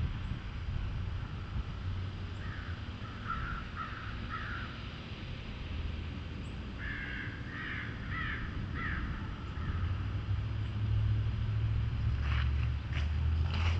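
Crows cawing: a run of four or five harsh caws a few seconds in, another run of about five around the middle, and more calls near the end. A low rumble grows louder in the second half.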